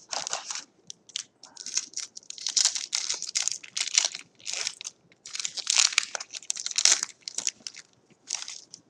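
Football-card pack wrapper being torn open and crinkled by hand, in a run of crackly rustles broken by short pauses.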